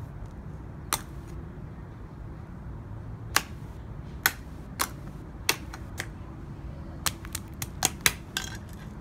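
A large kitchen knife chopping pumpkin pieces on pavement, the blade striking through to the hard ground in sharp knocks. There is one strike about a second in, then about a dozen more that come faster near the end.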